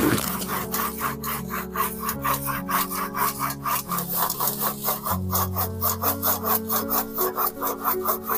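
Hand pruning saw cutting through a lime-tree branch in quick, even back-and-forth strokes, over background music.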